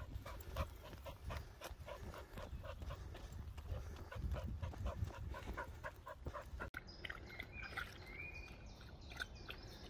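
Running footfalls on a sandy path in a quick, even rhythm with heavy panting. About two-thirds of the way through this cuts off abruptly and gives way to soft splashing from a dog wading in a muddy puddle.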